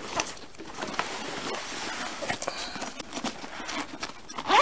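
Handling noise from a nylon range bag: cloth rustling and scattered light knocks as a handgun and the bag's fabric compartments are moved by hand.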